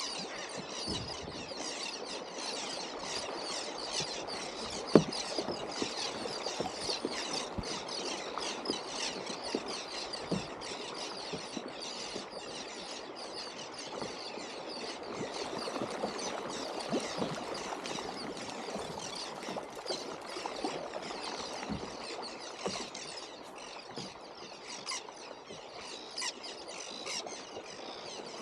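Dense crackle of many small splashes on the sea surface around a kayak, from a school of bait fish and the birds diving on it, with one sharp knock about five seconds in.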